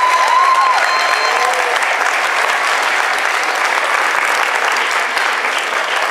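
Audience applauding steadily, with a brief rising-and-falling call in the first second or two.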